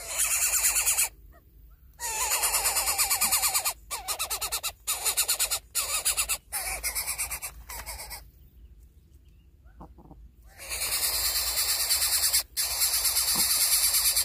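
A nestling bird begging: a rapid, raspy, hissing call in runs of a second or two, broken by several short pauses and a longer silence about eight seconds in.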